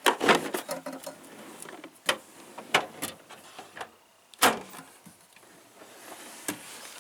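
Scattered clicks and knocks of hand tools and a tool case being handled in a toolbox drawer, the loudest knock about four and a half seconds in.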